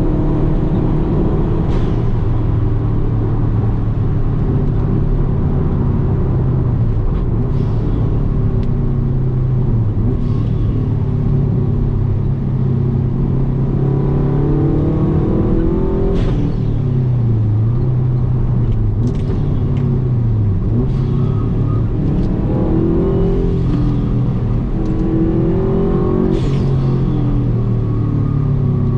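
Subaru WRX's turbocharged flat-four engine driven hard on a race track, its revs climbing and dropping several times through the gears.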